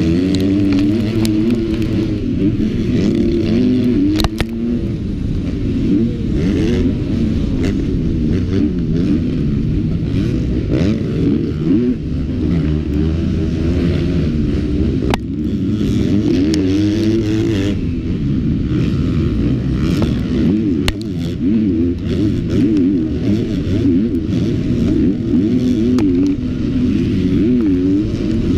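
Motocross bike engine racing at full throttle, its pitch climbing and dropping again and again as the rider revs through corners and gears, heard onboard with clatter and a few sharp knocks from the bike over the bumps.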